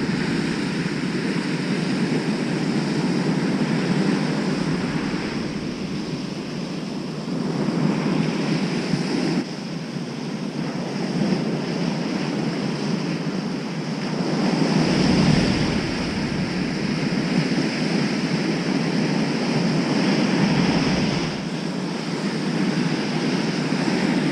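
Heavy surf breaking on a sandy beach, the wash swelling and easing in slow surges, with wind buffeting the microphone.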